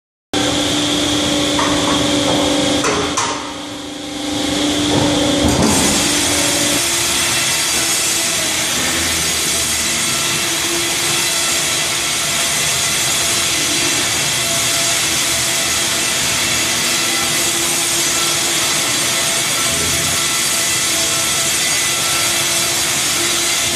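Sawmill cutting line running: the Wravor 1200 P-NB horizontal band saw and its saw units and conveyors give a loud, steady mechanical whine and rush. It cuts in suddenly just after the start and dips briefly about three to four seconds in.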